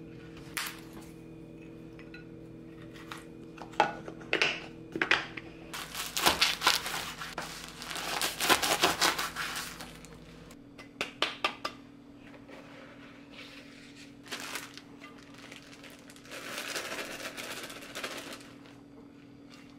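Crinkling and rustling of plastic packaging, with sharp clicks and clinks of containers being handled, over a low steady hum. The crinkling is heaviest from about six to ten seconds in and again near the end.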